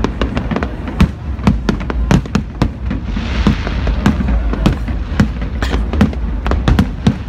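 Fireworks display: rapid bangs and pops of bursting shells, several a second, with a swell of hissing crackle about three seconds in.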